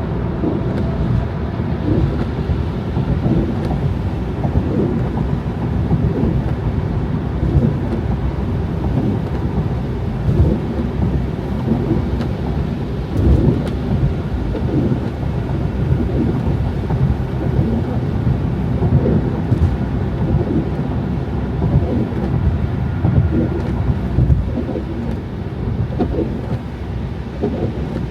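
Car driving on snowy roads: a steady low rumble of tyre and road noise that swells and eases unevenly.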